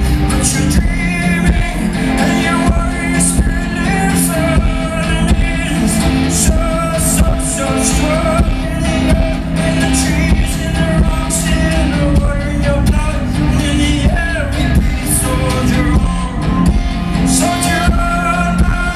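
Live concert music: singing over the band, with a dense low end and regular percussion hits.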